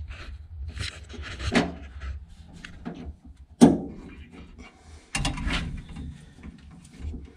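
Hands pressing and tucking carpet into place along a pickup's door sill: rustling and clicking with a few knocks, the sharpest about three and a half seconds in and another cluster past the five-second mark.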